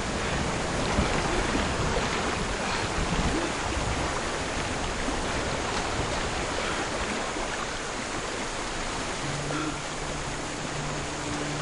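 Steady rushing water filling the jungle ambience. A low drone of two steady tones comes in near the end.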